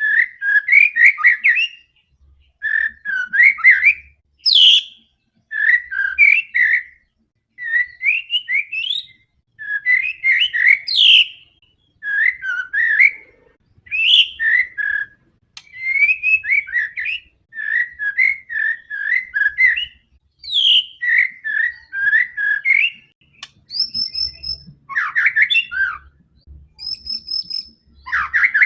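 White-rumped shama singing in full, aggressive song: phrase after phrase of varied whistled notes and glides, each about a second long with short pauses between. Higher, thinner notes come near the end.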